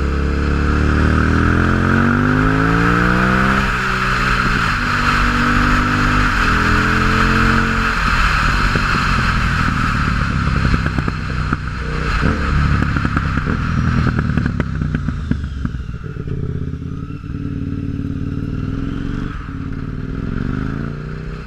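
2006 KTM 950 Supermoto's V-twin running through an open MIVV exhaust with no dB-killers. It accelerates with a rising note, shifts up about four seconds in and pulls again. From about eight seconds in the throttle is closed, and the exhaust pops and crackles on the overrun as the engine note falls away.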